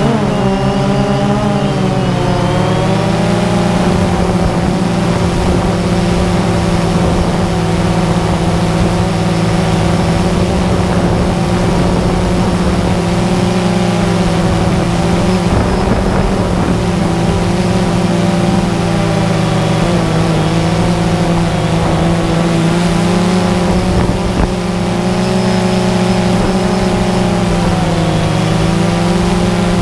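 Multirotor drone's motors and propellers running with a steady buzzing whine, its pitch dipping and rising a little as the motors change speed, heard from the drone's own onboard camera.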